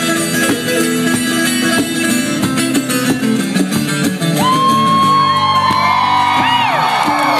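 Acoustic-electric guitar played solo, a run of plucked notes. From a little past the middle, several rising-and-falling whoops and whistles from the audience sound over the guitar.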